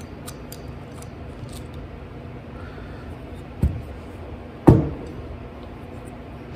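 Light clicking of small metal carburetor parts being handled, then two knocks about a second apart, the second the louder with a short ring, as the cast metal carburetor bowl is knocked on the workbench. A steady low hum runs underneath.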